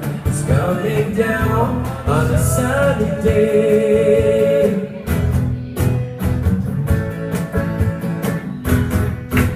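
Live acoustic band: a man singing over strummed acoustic guitars. The singing stops about five seconds in and the guitars keep strumming.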